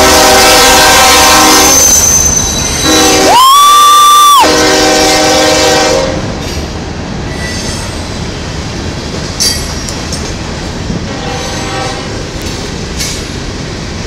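A diesel freight locomotive's horn sounds a loud chord in long blasts while loaded coal hopper cars roll past close by. About three and a half seconds in, a higher single-pitched tone joins for about a second. After about six seconds the horn stops, leaving the rumble and clatter of the hopper wheels over the rails, with a sharp squeal a few seconds later and a short, fainter horn chord near the end.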